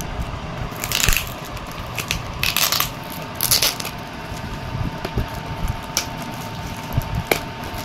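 Plastic wrapping on a cardboard parcel rustling and tearing as it is pulled open by hand, in a few short bursts, with light knocks as the box is handled.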